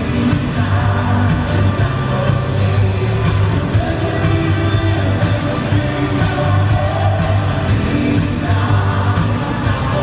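Live rock band playing at full volume, with electric guitars, bass, drums and keyboards under a male lead vocal.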